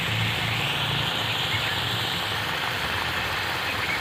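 Poppy-seed curry simmering in a kadai on the stove: a steady sizzling hiss with a low hum beneath that weakens about halfway through.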